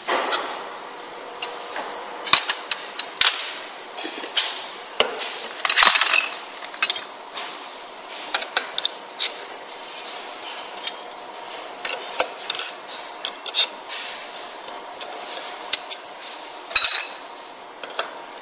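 Irregular metallic clinks, taps and knocks as an Allen key and steel machine parts are handled while the guide barrier and star-wheel turntable of a bottle filling machine are unbolted, over a faint steady hum.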